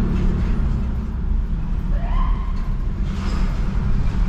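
Car engine and exhaust rumbling deep and steady inside the cabin while driving, with a brief rising tone about two seconds in.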